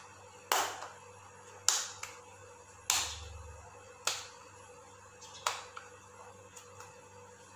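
A person's palms slapping together in a row of five sharp claps, about one every second and a quarter, each dying away quickly.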